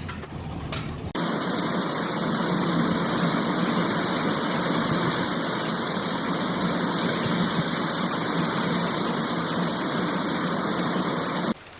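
Steady rushing of water, an even hiss-like wash with no rhythm, that starts abruptly about a second in and cuts off just before the end.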